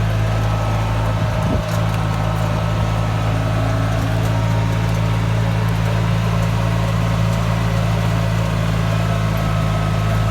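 Golf cart running steadily as it is driven off road, a constant low drone with a brief dip in level about a second and a half in.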